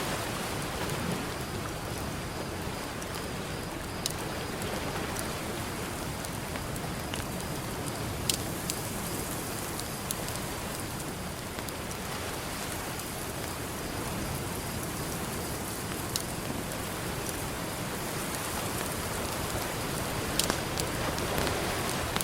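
Campfire crackling, with a few sharp pops from the burning wood, over a steady wash of ocean surf.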